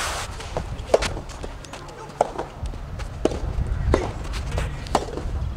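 Rubber soft tennis ball being struck by rackets and bouncing during a doubles rally: a series of sharp pops about once a second.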